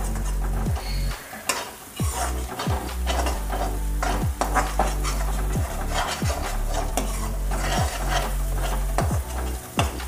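Slotted metal spoon scraping and stirring a thick spice paste of ground ajwain, cumin, turmeric and dry ginger in a metal kadhai, in repeated strokes about once a second, with the oil sizzling as the spices fry.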